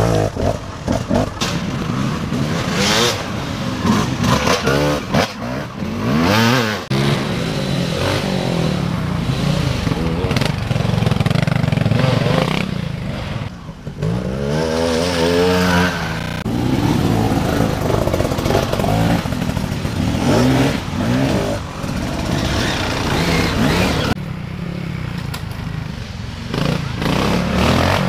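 Off-road motorcycle engines revving up and easing off again and again as the bikes climb and pick their way along a muddy trail, the pitch rising and falling with each burst of throttle. The sound changes abruptly a few times as one rider gives way to the next.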